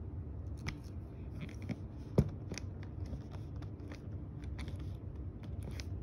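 Small, irregular clicks from handling a TSA combination lock on a hard-shell suitcase, with one sharper click about two seconds in.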